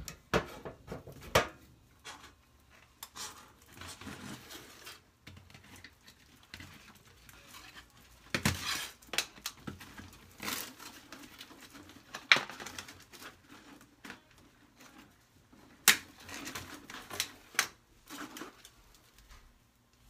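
Aluminium foil flex dryer duct being cut and pulled off its wall connection: crinkling foil with irregular sharp metallic clicks and snaps.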